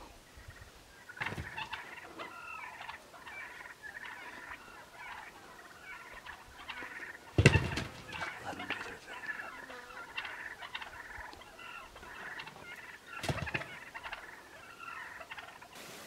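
Gould's wild turkeys calling and gobbling almost without pause. A loud burst of wing-flapping comes about halfway through as the birds leap and flap at each other, and a smaller one comes near the end.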